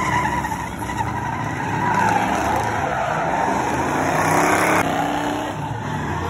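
Classic muscle car doing burnout donuts: the engine runs at high revs while the rear tyres spin and squeal continuously against the pavement.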